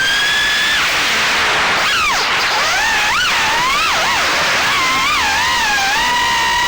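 Small FPV quadcopter's brushless motors (GEPRC 1206 4500kv) and Gemfan 3-blade props whining over a steady hiss. The pitch jumps up at the start and holds briefly, then rises and falls quickly several times as the throttle is worked, and steadies near the end.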